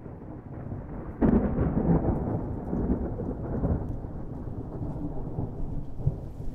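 Thunder: a low rumble builds, breaks into a loud clap about a second in, then rolls on and slowly eases off.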